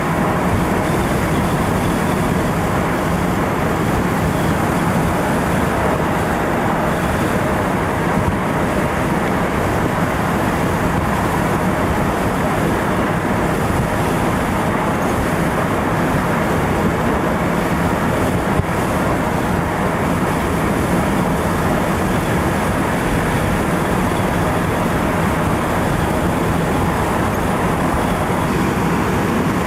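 Steady vehicle and road noise, as of riding in a moving vehicle, even and unbroken throughout.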